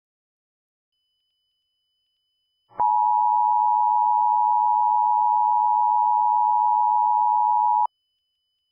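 Emergency Alert System attention signal: two steady tones sounding together, starting abruptly about three seconds in and cutting off sharply about five seconds later.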